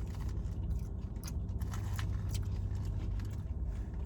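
Close-up chewing and mouth sounds of someone eating, with a few short crisp clicks, over a steady low hum inside a parked car.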